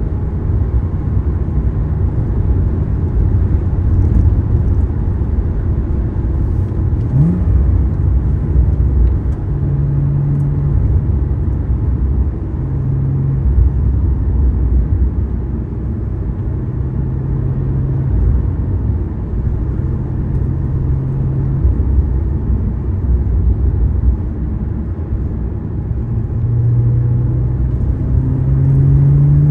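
Porsche Boxster/Cayman's flat-six engine and tyre rumble heard from inside the cabin while driving. The engine tone holds at a few steady pitches, then rises as the car accelerates near the end.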